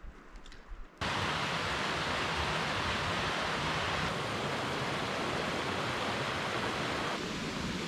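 Small mountain stream cascading over mossy rocks: a steady rush of water that starts abruptly about a second in.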